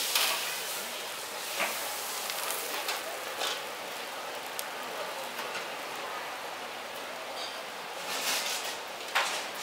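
Food sizzling and frying in a hot wok over a gas burner, a steady hiss. It is loudest at the start and again in a few short bursts near the end.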